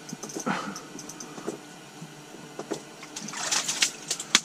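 Ice-fishing rod and line being handled: scattered small clicks and ticks, then denser crackling and rustling from about three seconds in.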